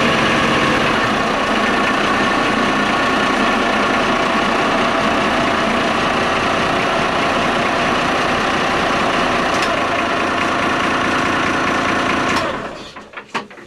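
Turbocharged inboard marine diesel engine running steadily, heard close up in the engine bay. Near the end it stops, with a few last strokes dying away.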